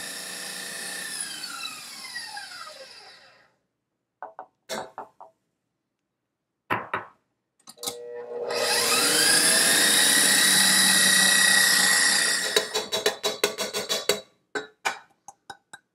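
KitchenAid stand mixer with a wire whisk whipping egg whites for meringue. Its motor winds down to a stop with a falling whine in the first few seconds, and a few small knocks follow. The mixer then starts again, its whine rising to a steady whir for about four seconds, and stops with a quick run of clicks; it is paused so sugar can be added.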